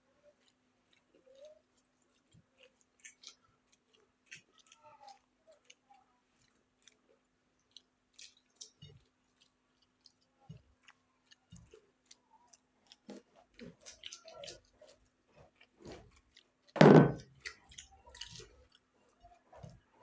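Chewing and smacking of people eating rice and egg curry, with scattered small clicks and a faint steady hum. About seventeen seconds in comes one short, much louder burst of sound.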